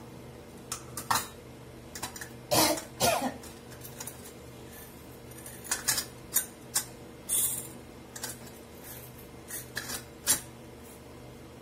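Scattered clinks and knocks of kitchen utensils and pots being handled, a dozen or so short strikes spread irregularly, the longest cluster about three seconds in, over a steady low hum.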